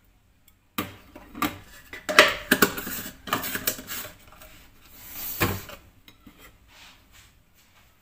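Dishes and cutlery clattering and clinking as they are handled, a quick run of knocks starting about a second in and thinning out near the end.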